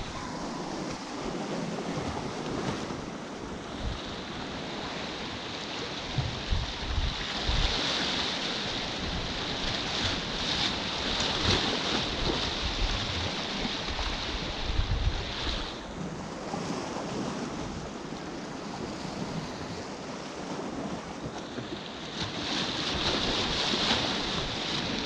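Sea waves washing against a rocky shore, swelling and fading every few seconds, with wind buffeting the microphone in low thumps.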